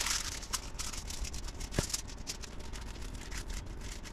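Hands rubbing masala paste onto a whole scored fish: short, irregular rubbing and scraping sounds, with one sharp click a little under two seconds in.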